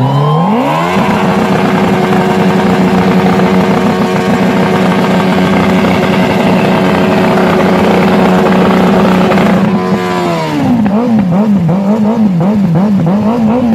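Suzuki Hayabusa's inline-four engine revved up and held at high, steady revs during a burnout, the rear tyre spinning on the cobblestones. About ten seconds in the revs drop, and the throttle is blipped up and down several times before the engine falls back.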